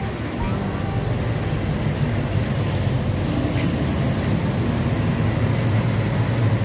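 Tour coach's diesel engine running, a steady low rumble that grows slightly louder toward the end.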